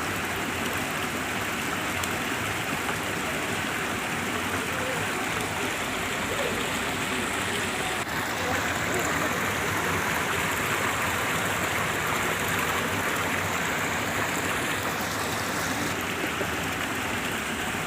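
Flowing water rushing steadily, a stream or small cascade, with a slight shift in the rush about eight seconds in.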